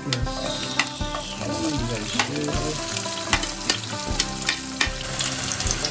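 Garlic and chopped onions sizzling in hot oil in a kadai, with a spatula clacking and scraping against the pan about once a second as they are stir-fried.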